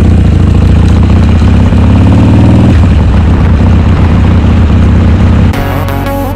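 Harley-Davidson Sportster's V-twin engine running loud and steady as the motorcycle rides along. About five and a half seconds in, it gives way to background music.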